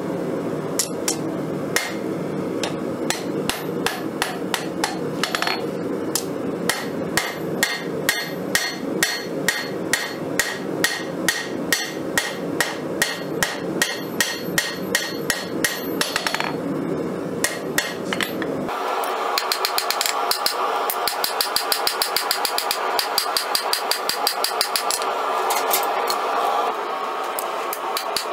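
Hand hammer striking a red-hot steel blade, forged from a Nicholson file, on an anvil, in a steady run of blows about two or three a second over a steady low background noise. About two-thirds of the way through the background noise stops and the blows become quicker and lighter.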